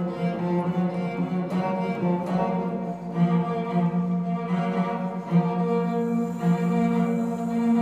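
Slow bowed-string music: a cello holding long, low, sustained notes, with higher string lines shifting over it every second or so.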